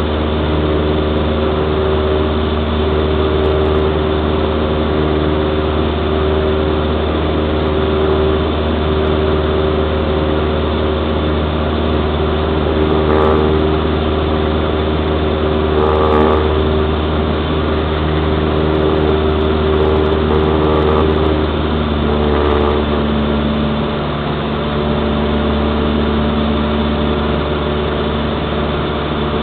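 Cessna 172's piston engine and propeller running steadily at power in the climb after takeoff, heard as a loud, even drone from the cockpit. Its note shifts slightly about three-quarters of the way through.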